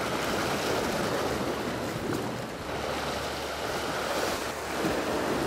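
Sea surf washing and breaking against a rocky shore, a steady noisy wash that swells and eases, with some wind on the microphone.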